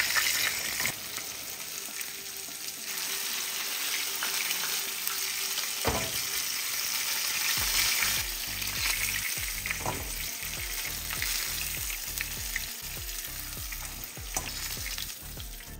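Battered butterfish pieces shallow-frying in hot oil in a nonstick pan, a steady sizzle throughout, with scattered clicks and knocks as the pieces are turned and lifted out with tongs.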